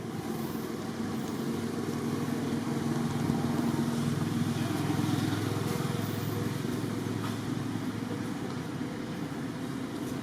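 A motor vehicle's engine running steadily, growing a little louder about halfway through and then easing off.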